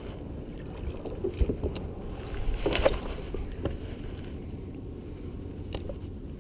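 Low wind rumble on the microphone aboard a plastic sit-on-top kayak, with a few light knocks on the hull and a brief scuffling rustle about three seconds in.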